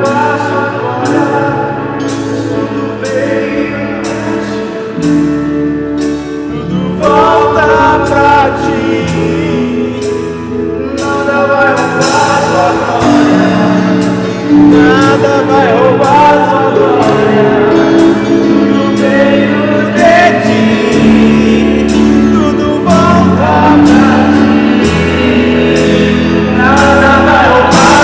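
Live gospel worship music: a band with drums and sustained keyboard chords, with singers carrying the melody over it and a steady beat.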